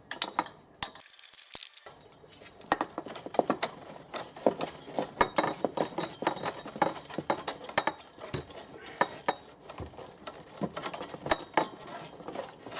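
Irregular metallic clinks and knocks from a spanner and the antenna's mast-clamp hardware as the bolts are slackened and the loop is worked loose on the mast.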